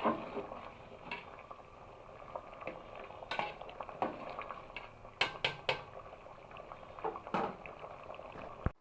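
Chicken and potato curry bubbling in a pot, with a utensil knocking against the pot about eight times. The sound cuts off suddenly near the end.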